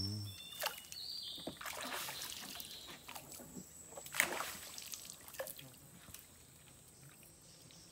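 Gill net being hauled by hand out of floodwater into a boat: water dripping and splashing off the mesh in irregular splashes, fading toward the end.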